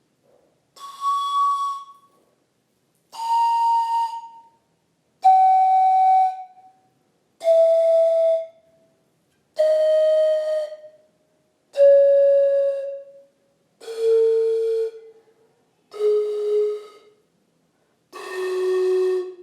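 Handmade ceramic antara (Andean panpipe) of high-fired recycled clay, blown one tube at a time: nine separate breathy notes, each about a second long, stepping steadily down from the highest tube to the lowest. The tone is not very booming, which the maker puts down to the clay being fired to 1200 degrees so that its pores close.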